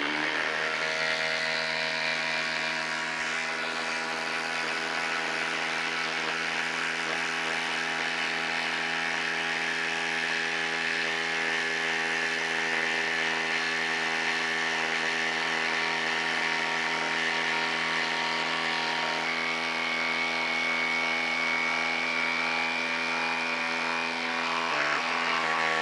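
Flex brushless impact driver hammering without a break as it drives a 10-inch lag screw into a wooden block under heavy load. The sound is a steady, even buzz.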